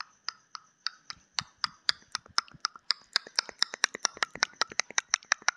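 Countdown timer ticking sound effect: sharp clicks that speed up steadily, from about four a second to about eight a second.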